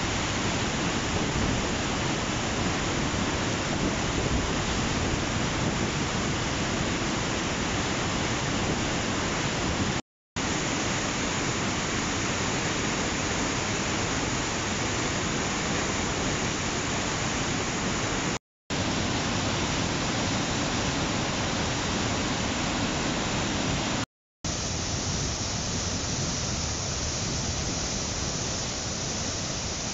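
Whitewater river rapids rushing steadily over rock, a dense unbroken roar of water. The sound cuts out completely for a split second three times, and after the last cut the rush is a little lighter.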